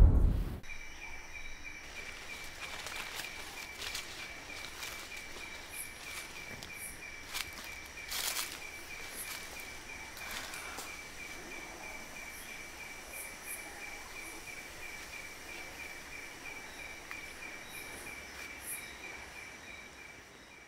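Nature ambience: an insect chirping in a steady, even pulse at one high pitch, over a fainter steady high tone, with faint short high chirps and a few brief clicks.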